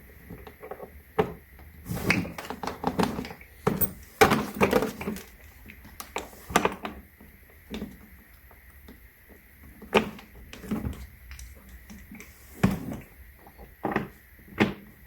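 Hard plastic knocks and clicks as a PC+ABS hardshell suitcase and its spinner wheels are handled, an irregular string of bumps with the loudest about four seconds in.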